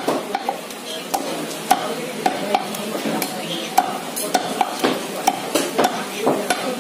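Large butcher's knife chopping goat meat and rib bone on a wooden log chopping block: a run of sharp knocks, about two a second at an uneven pace, over a steady background noise.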